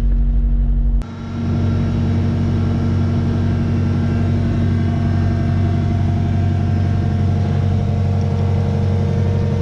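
Kubota KX excavator's diesel engine running steadily. About a second in there is a sharp click and a brief drop in level, after which the engine runs on steadily.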